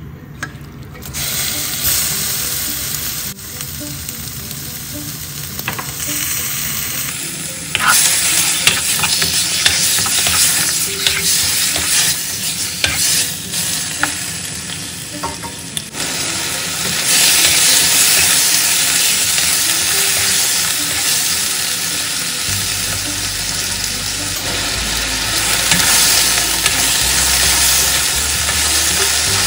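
Chicken thigh pieces sizzling as they brown in hot oil in a nonstick wok, stirred with a spatula that scrapes and taps the pan. The sizzle grows louder about eight seconds in.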